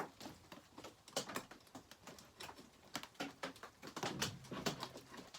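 Irregular small metal clicks and knocks of pliers working at the fastener of a chainsaw's oil pump.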